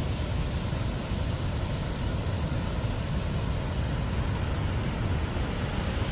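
Dam outflow water, released through two opened gates, rushing down a rocky cascade in a steady, heavy rush of noise.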